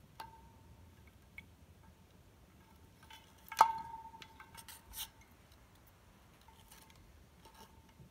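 Sharp clicks and clinks of hard parts knocking inside an opened old TV set, with one loud clack about three and a half seconds in that rings on briefly.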